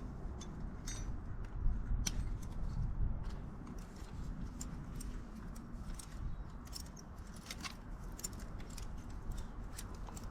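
Light, irregular metallic clicks and clinks of motorcycle brake caliper parts, pad pin and brake pads, being worked loose and handled with hand tools, over a low background rumble.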